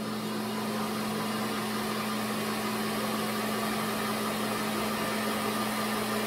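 Bell & Howell Filmo Picture Master 8mm projector's electric motor running on its own with the clutch disengaged: a steady hum over a light whirring hiss, building slightly over the first second or so as it comes up to speed. The motor is nice and quiet and turns.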